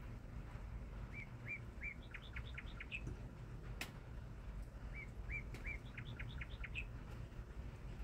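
A songbird outside sings the same short song twice, each time three whistled up-and-down notes followed by a quick run of five or six falling notes. A single sharp click comes between the two songs.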